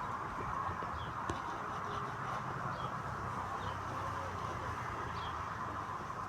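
Faint, scattered bird chirps over a steady outdoor hiss, with one sharp click about a second in.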